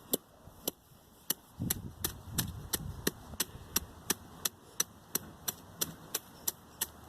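A stick striking weeds again and again at a steady pace, about three sharp hits a second.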